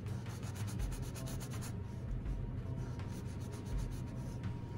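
Paintbrush scrubbing paint onto canvas in quick short strokes, rapid for the first couple of seconds and then slower and sparser.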